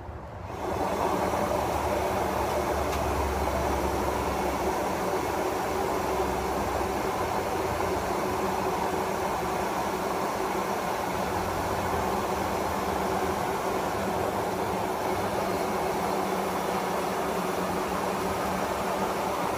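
Electric air blower switched on about half a second in and running steadily with a constant hum, pumping air through a hose to inflate a spa dolly wedge air bag.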